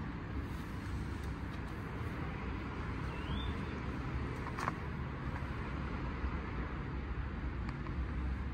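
Steady low rumble of road traffic, with one short rising chirp a little after three seconds in and a sharp click about halfway through.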